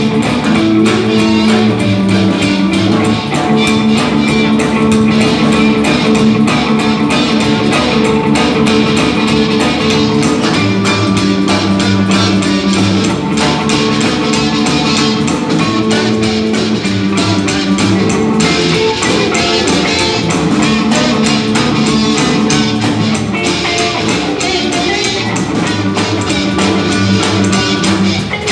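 A live blues band playing a rocking blues: harmonica cupped with a microphone against the mouth, hollow-body electric guitar, upright double bass and drum kit, all playing together steadily.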